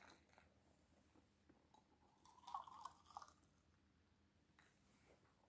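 Near silence, broken by a faint, brief trickle of just-boiled water poured from an electric kettle into a metal can, lasting about a second from two seconds in.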